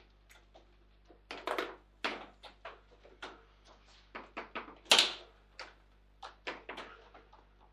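Table football in play: the ball struck by the figures on the rods and knocking around the table, in a quick irregular run of sharp knocks and clicks, the loudest a hard hit about five seconds in.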